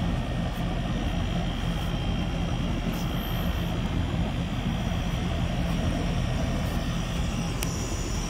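Steady low hum of a running residential air-conditioning condensing unit, its compressor and condenser fan.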